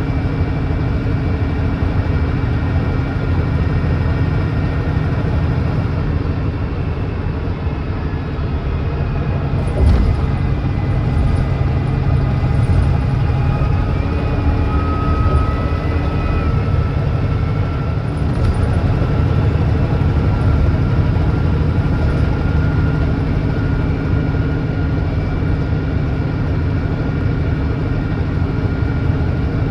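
Volvo D9B 9.3-litre diesel engine of a Volvo B9TL double-decker bus running steadily under way, with a thin whine that rises slowly in pitch in the middle of the stretch. There is a single knock about ten seconds in.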